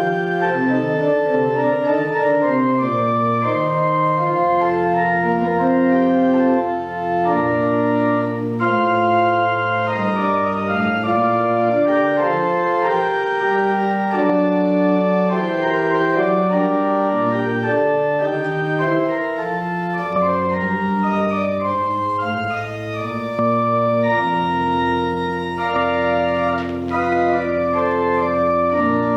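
Organ music: held chords in several voices over a bass line, the notes changing about once a second.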